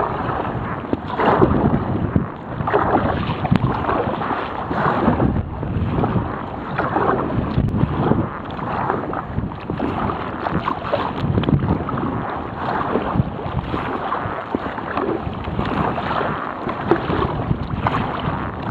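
Strong wind buffeting the microphone over water sloshing and splashing around a sea kayak, swelling and easing every second or two.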